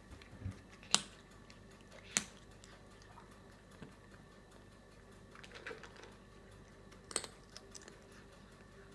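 Cat eating from a bowl: three sharp clicks about a second in, at about two seconds and near the end, with a few fainter ticks between.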